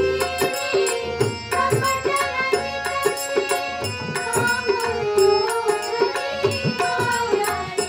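Group of women singing a devotional song together, accompanied by tabla strokes.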